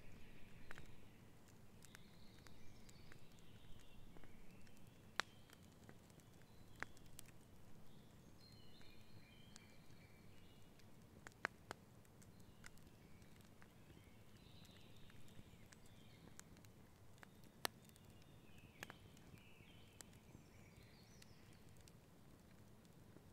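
Faint wood campfire crackling, with scattered sharp pops, a few louder than the rest. Birds chirp faintly in the forest now and then.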